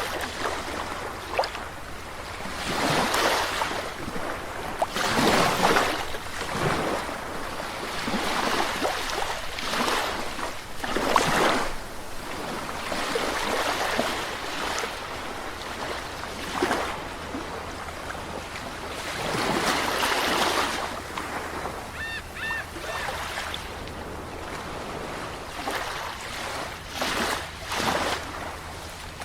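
Sea waves breaking and washing on a shore, a steady surf with a louder surge every few seconds. A few short high calls come through briefly about two-thirds of the way in.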